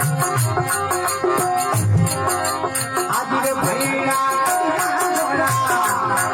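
Rajasthani desi bhajan (devotional folk music) playing as an instrumental passage. A sustained melody line runs over a hand drum, with quick, regular metallic percussion strokes about five times a second.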